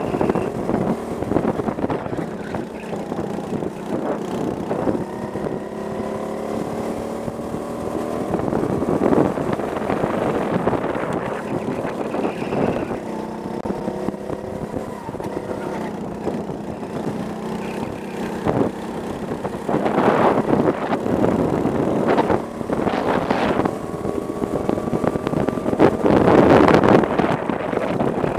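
Go-kart engine running under throttle on the driver's own kart, its pitch rising again and again as it accelerates out of corners. Several loud rushes of wind buffet the helmet camera's microphone, the strongest near the end.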